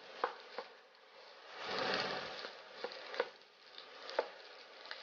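Wooden spatula stirring fried rice in a frying pan: about five sharp taps of the spatula against the pan over a soft scraping hiss, which swells briefly about two seconds in.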